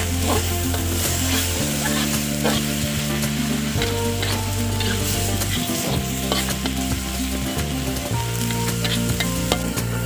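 Minced meat sizzling as it is stir-fried in an aluminium wok, with a metal spatula scraping and tapping against the pan many times.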